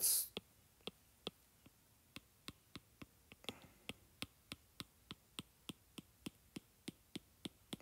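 Light taps on a tablet's touchscreen as a sculpting brush is dabbed over the model: a long, uneven series of sharp little clicks, a few a second.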